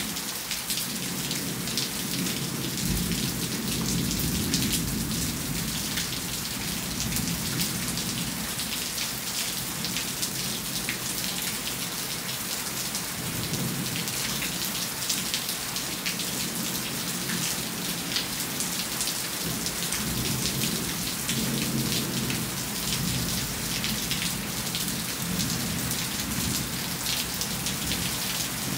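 Steady rain falling and pattering on surfaces during a thunderstorm. Low thunder rumbles in long swells, loudest a few seconds in and again past the middle.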